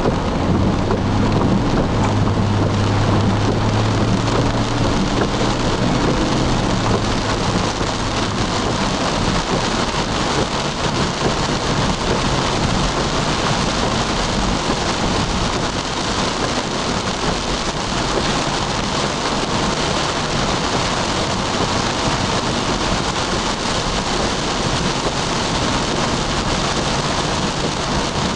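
Heavy rain beating on a moving car's windshield and roof, heard from inside the car, with a steady hiss of tyres on the wet road. A low engine hum sounds under it for the first several seconds, then fades into the rain noise.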